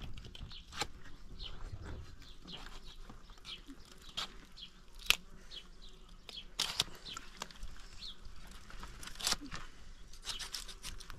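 A knife cutting and the hide being pulled away as a hanging goat carcass is skinned: scattered sharp cuts and rips, the loudest about five seconds in. Birds chirp throughout.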